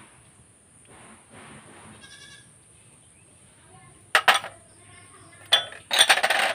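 Goat bleating: a short call about four seconds in, and a longer one near the end.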